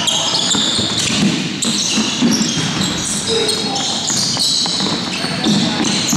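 Basketball game on a hardwood court: sneakers squeak again and again in short high-pitched chirps, and a basketball bounces.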